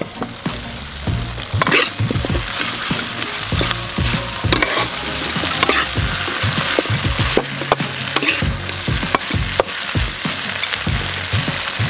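Chicken feet sizzling in sauce in a wok, with a metal spoon scraping and knocking against the pan as they are stirred.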